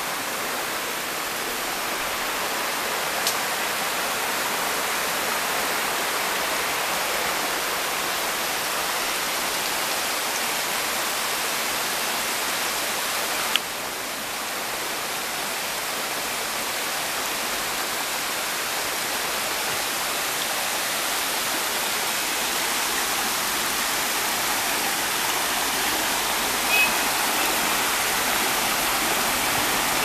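Waterfall cascading down a rock face: a steady, even rush of falling and splashing water, strongest in the hiss range. A brief click cuts in near the middle.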